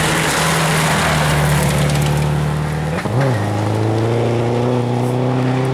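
Subaru Impreza rally car's flat-four engine pulling hard on a gravel stage, with a constant hiss of tyres and flying gravel. About three seconds in the engine note dips and drops to a lower pitch as it changes gear, then climbs slowly.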